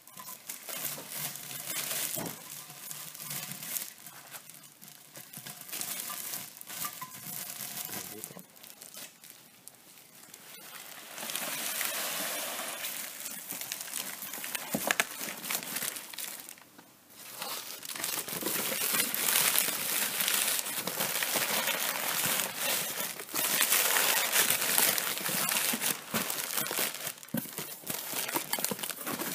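Plastic bubble wrap crinkling and rustling in irregular bursts as it is stuffed into a cardboard box, with brief pauses and louder handling in the second half.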